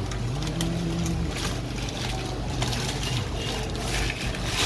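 Laser-cutting machine running with a steady mechanical hum, with light ticks and a sharp click near the end.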